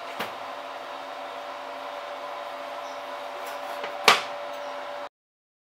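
Steady electric hum from the preheated range oven, with a light knock just after the start and a sharp, loud knock about four seconds in as the hot ceramic crumble dish is handled at the oven; the sound cuts off suddenly about five seconds in.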